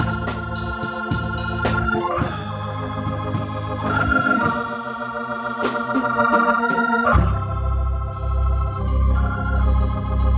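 Hammond organ playing held gospel chords that change every second or two, with drums and cymbals striking along. About seven seconds in, deep bass notes come in under the chords.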